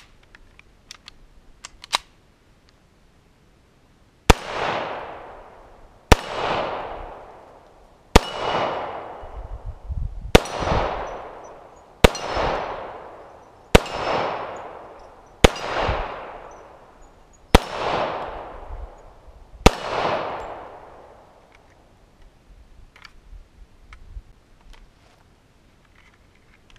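Hi-Point JHP .45 ACP pistol fired nine times at a steady pace, about one shot every two seconds. Each shot rings on in a long echo. A few sharp clicks of the pistol being handled come in the first two seconds.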